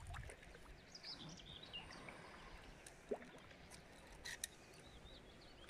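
Near silence: faint outdoor ambience with a few faint high chirps and a couple of soft clicks.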